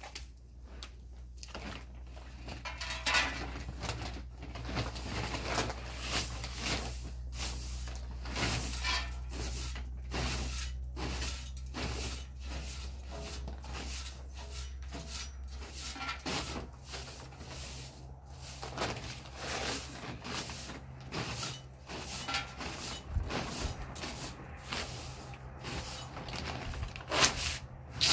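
Short straw hand broom sweeping a concrete doorstep: repeated swishes of the bristles on the concrete, irregular, about one or two a second, with a low steady hum underneath.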